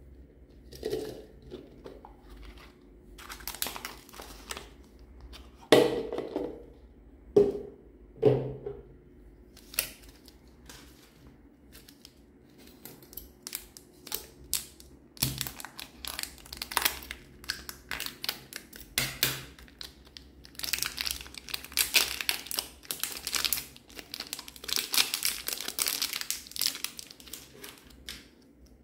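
Close-up handling sounds with no music or speech. A plastic container is opened with several sharp clicks and a few loud thuds, and scissors snip into a soft yellow squishy toy. The toy is then cut and pulled apart with dense crinkling and tearing sounds in the last third.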